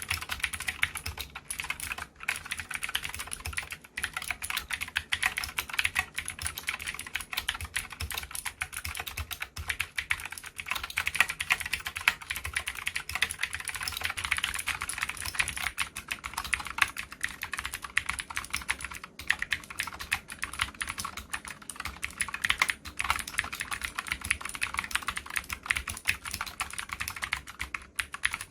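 Continuous fast typing on a COX CK87 tenkeyless mechanical keyboard with clicky Gateron Green switches: a dense stream of sharp key clicks, broken by a few brief pauses.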